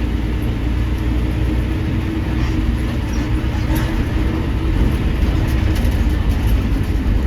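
Steady rumble of a vehicle in motion, heard from on board, with a constant low hum under it.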